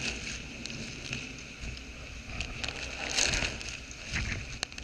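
Hurricane-force wind and driving rain: a steady rushing noise with the low rumble of wind buffeting the microphone and scattered sharp ticks, growing gustier about three seconds in.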